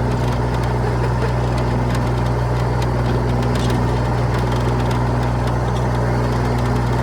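Vehicle engine idling steadily, a low even hum with no change in pitch.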